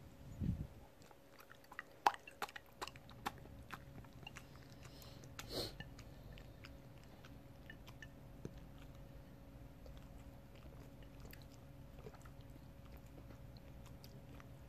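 Quiet wet mouth clicks and lip smacks of eating soft plain yogurt, clustered about two to three and a half seconds in, after a soft thump about half a second in. A short rustle comes near the middle, then only a faint steady hum.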